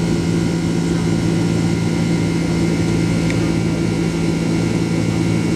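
Steady jet airliner cabin noise heard from inside: the engines and airflow make a constant low drone with a few steady tones, holding an even level.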